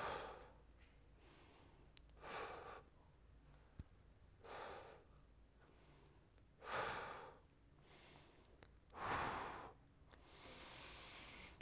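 A man breathing slowly and deeply, each breath a soft rush of air about every two seconds, as he counts breaths through a held shoulder stretch against a wall. A small click is heard about four seconds in.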